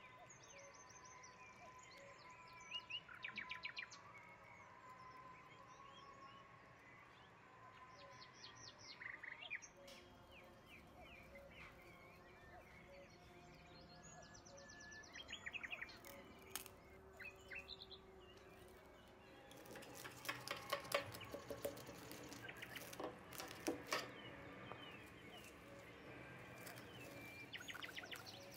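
Small birds chirping faintly in short, quick high trills every few seconds, over a soft sustained background tone. About two-thirds of the way through there is a few seconds of sharp crackling clicks.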